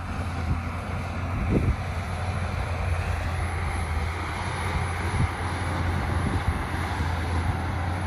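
Heavy diesel earthmoving machinery running steadily: a Shantui DH17 C2 bulldozer pushing soil and stone while a dump truck tips its load, heard as a continuous low engine hum, with wind buffeting the microphone.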